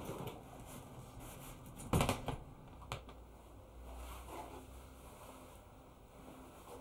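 Handling noises of a close struggle between two people: clothes rustling, with a loud thump about two seconds in and a sharp knock about a second later.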